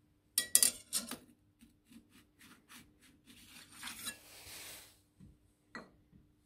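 A thin metal clutch ring clinking and tapping against the steel face of a magnetic chuck. A quick run of sharp clinks comes first, then lighter taps, a short metal-on-metal slide just after four seconds in, and one last clink near the end, over a faint steady hum.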